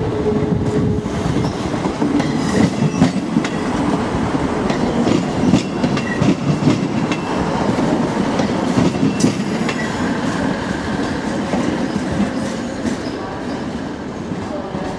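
First ScotRail Class 158 diesel multiple unit running past at low speed, its diesel engine under power and its wheels clattering over rail joints and pointwork. The sound fades somewhat over the last few seconds as the train draws away.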